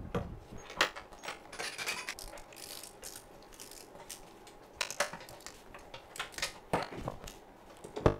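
Hand tools and metal parts clinking as a wrench works the bolts of an aluminium engine case cover: an irregular string of sharp metallic clicks and knocks.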